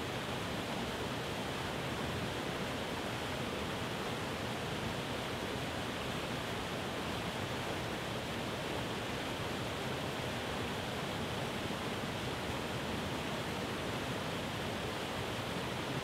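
Waterfall: white water pouring and splashing down over rock ledges in a steady, unbroken rush.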